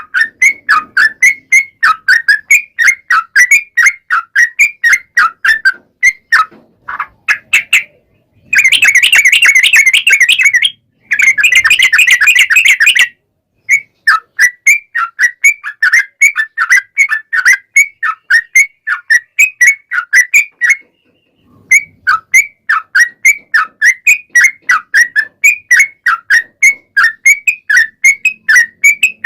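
Yellow-vented bulbul singing a long run of quick, chattering whistled notes, about three or four a second. Around a third of the way in come two loud, dense, rapid trills, and there are short pauses near the middle and past two-thirds.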